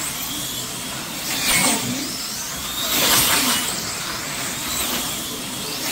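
Electric slot cars racing round the track, their small motors whining and the cars hissing along the slots, swelling about every second and a half as the pack comes past.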